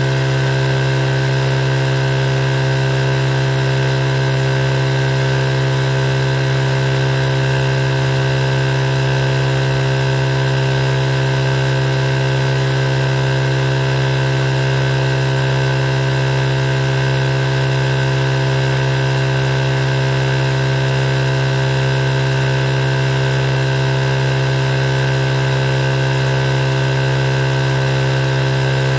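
Electric sewing machine running continuously at a constant speed, a steady motor hum without pauses.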